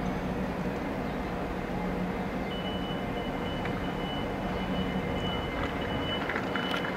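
Steady low hum and rumble of a passenger train at the station, with a thin steady high whine joining about two and a half seconds in. A few light clicks come near the end.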